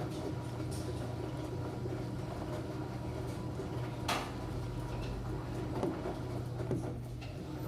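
Enxuta Júnior 2 kg compact washing machine running, a steady motor hum with a thin steady whine, light ticks, and one short sharp sound about four seconds in.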